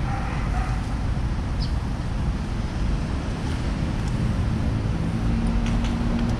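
Steady low rumble of wind on the microphone and vehicle traffic; from about four seconds in, an engine idling adds a low steady hum.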